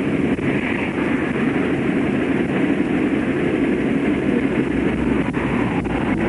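Steady rumble of highway traffic, tyres and engines of vehicles passing in the interstate lanes.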